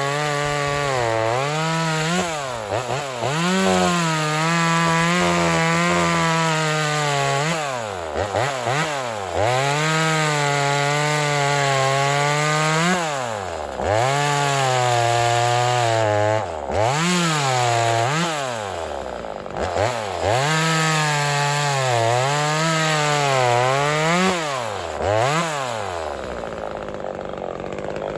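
Stock small two-stroke top-handle chainsaw, a Chinese clone of the Zenoah 2500, cutting through pine logs. The engine is held high in the cut, its pitch wavering under load, with repeated sharp drops and climbs in pitch as the throttle is let off and opened again. It runs lower and weaker near the end.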